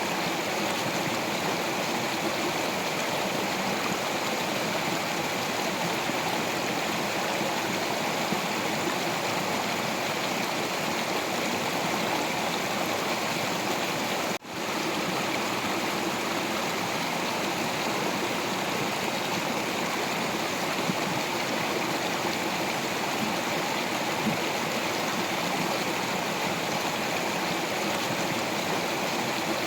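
Stream water flowing and splashing over rocks, a steady rushing with no letup. The sound drops out for a split second about halfway through.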